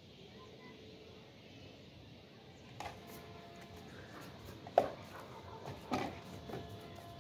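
A Belgian Malinois leaping and snapping at a ball on a rope gives three short, sharp knocks in the second half, the middle one loudest.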